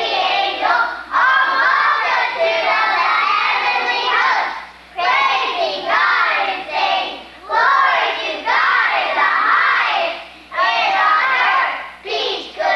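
A group of young children singing together as a choir, in phrases of a few seconds with brief breaks between them.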